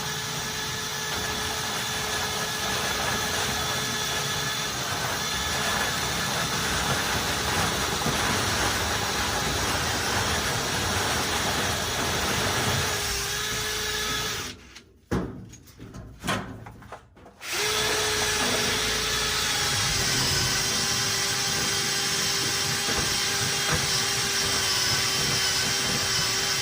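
Power drill spinning a rotary dryer-vent cleaning brush up inside the vertical vent pipe, running steadily. A little past halfway it stops for about three seconds, with a couple of short spurts, then runs steadily again.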